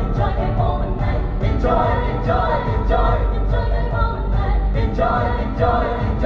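Music with singing voices over a steady, pulsing beat, from a stage performance.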